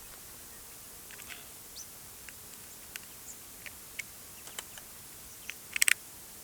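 Film camera's shutter firing near the end, a quick cluster of sharp mechanical clicks. Before it, faint scattered bird chirps and insect ticks over a quiet outdoor hiss.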